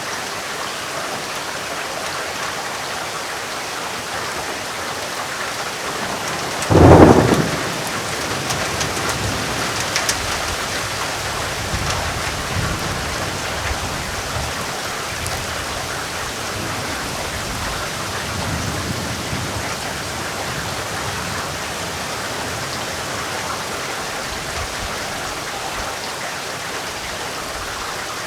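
Heavy rain falling steadily. About seven seconds in, a loud sudden thunderclap, followed by low rumbling that dies away over several seconds.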